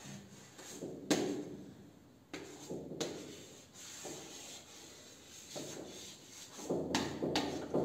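Chalk writing on a blackboard: scratchy strokes of chalk across the board, with a few sharp taps as the chalk strikes it.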